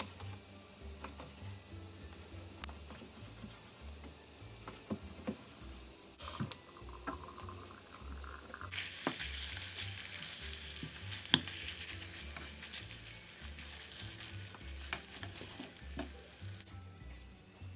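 A knife tapping on a wooden cutting board as raw turkey fillet is cut into pieces. From about nine seconds in, turkey pieces and onions sizzle in a frying pan, stirred with a wooden spatula.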